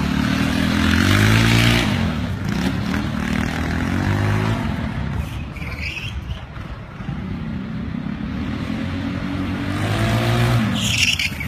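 Small motorbike engines revving, the pitch climbing three times in long rises with a lower, quieter stretch in between.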